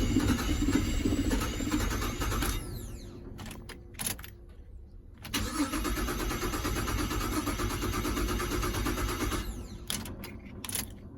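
Holden Commodore VZ engine being cranked by its starter motor twice, about four seconds each time, with a falling whine as it spins down after each attempt. There are a few sharp clicks in between.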